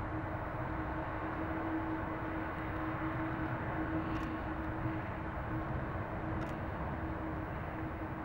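Boeing 777-200's jet engines running at taxi idle: a steady rumble with a constant tone held through it.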